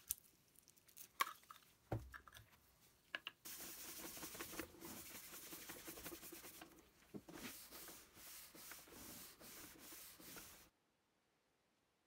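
A few light knocks and taps, then a cloth rag rubbing back and forth over the wooden surface of a chessboard, wiping on finish. The rubbing stops suddenly near the end.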